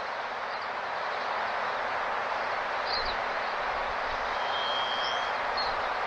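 Steady outdoor rushing hiss with a few short, high bird chirps about three and five seconds in, and one thin, even whistled note lasting under a second just before the five-second mark.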